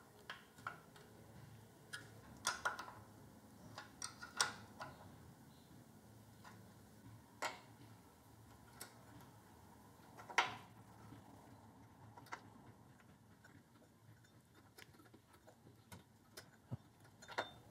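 Scattered light clicks and metal taps, irregularly spaced, from hand tools and small metal engine parts being handled over a quiet room hum: fitting a fuel shutoff tap and carburettor parts on a small mower engine. The loudest taps come about two and a half, four and a half and ten seconds in.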